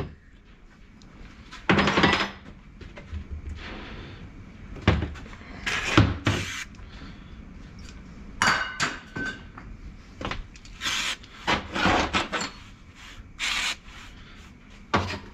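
Metal scraping and tapping in irregular bursts as a circlip is worked and knocked into its groove on a gearbox shaft to seat it fully.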